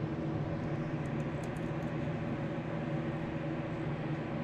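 Steady low mechanical hum of a running machine, with a few faint light clicks about a second in.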